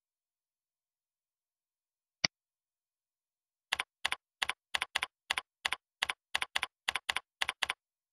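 A single click, then a quick run of about sixteen computer-keyboard keystrokes as a task name is typed.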